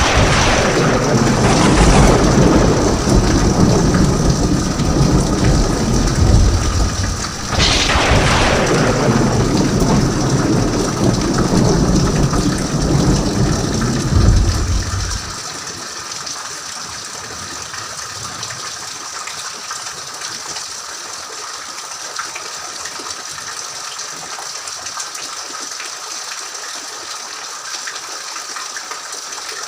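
Steady rain with two thunderclaps, one at the start and one about eight seconds in, each trailing off into a low rumble. The thunder dies away about halfway through, leaving the rain alone.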